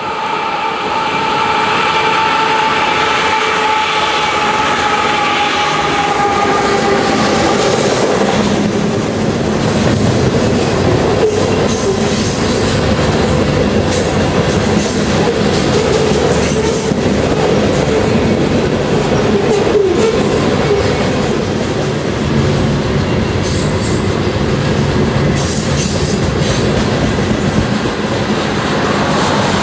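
A diesel-hauled freight train passing close by. Its locomotives go past first, with engine noise and a whine that drops slightly in pitch over the first several seconds. Then a long string of boxcars rolls by with steady wheel-on-rail rumble and scattered clicks over the rail joints.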